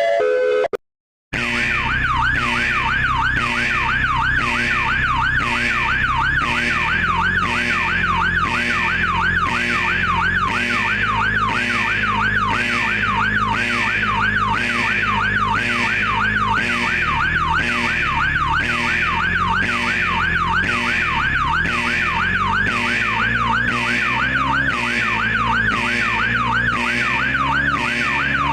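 Electronic emergency alert alarm: a siren tone sweeping rapidly up and down several times a second, with a low drone under it that shifts in pitch. It starts after a brief silence about a second in, which follows a short run of stepped tones.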